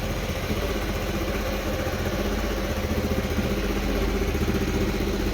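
Freshly rebuilt 2017 Honda Forza scooter engine idling steadily.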